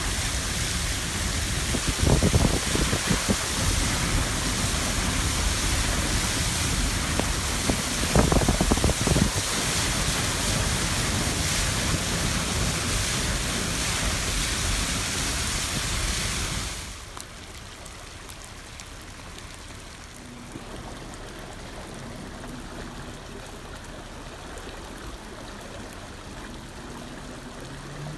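Car driving through deep flood water, the tyres throwing up a loud, steady rushing spray against the side of the car, heard from inside the car, with two heavier surges. About two-thirds of the way through it drops sharply to a quieter steady wash of running flood water.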